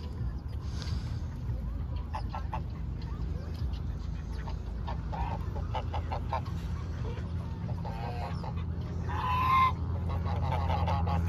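Domestic geese honking in short, scattered calls, with one louder honk about nine seconds in, over a steady low rumble.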